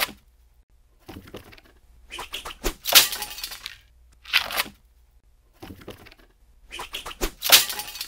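Sound effects of vinyl records being flung and striking: about five short bursts of whooshing and cracking, the loudest about three seconds in.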